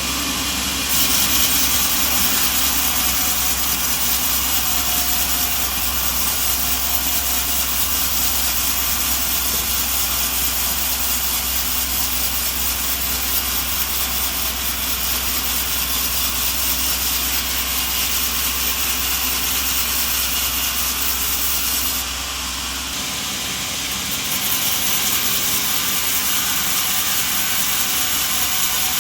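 Sawmill machinery running steadily: a motor hum under a continuous hiss. The low hum drops out about three quarters of the way through while the hiss carries on.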